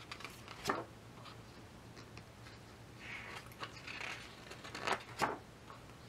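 Glossy pages of a large photobook being turned by hand: faint paper rustling and sliding, with a few short flaps as pages land, one about a second in and two close together near the end.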